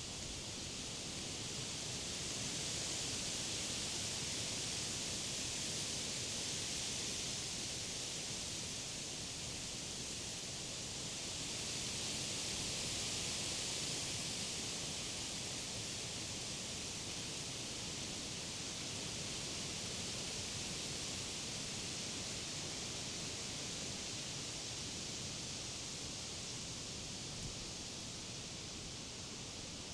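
Wind rustling the leaves of tall summer trees in gusts: a steady high rushing that swells twice and eases between.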